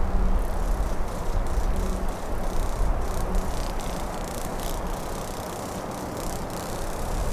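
Low, steady rumble of a distant diesel freight train approaching, dipping slightly mid-way and building again near the end.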